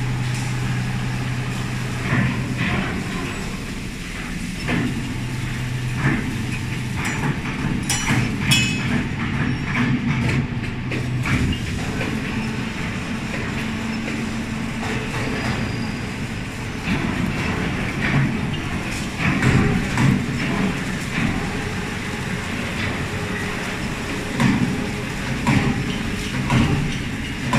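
Industrial machinery noise: a steady low hum that is strongest in the first few seconds, under irregular clanks and clattering.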